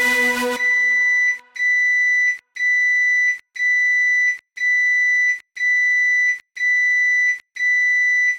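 Microwave oven beeping: a steady high electronic beep, about a second long, repeated about once a second, eight times in all. A held musical chord stops just before the beeps begin.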